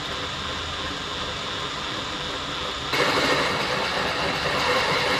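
Cordless drill boring a hole through a steel bolt head clamped in a vise: the bit cutting into metal runs steadily, then gets louder about three seconds in.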